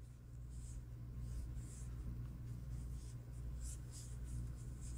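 Faint soft swishes of yarn being drawn through loops by a crochet hook, several short ones in a row, over a steady low hum.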